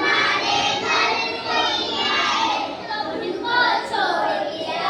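Children's voices singing together, several voices overlapping.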